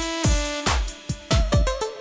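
Electronic background music in a dubstep style: sustained synth notes over a beat of deep drum hits that drop in pitch.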